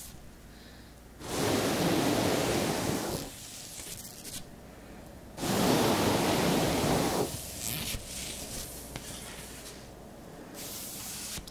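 Two long airy whooshes, each about two seconds, as black stork feathers are swept close past the microphone.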